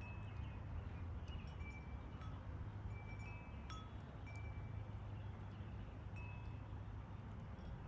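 Wind chimes ringing on and off in the breeze: scattered single clear notes, a few struck sharply, over a steady low rumble.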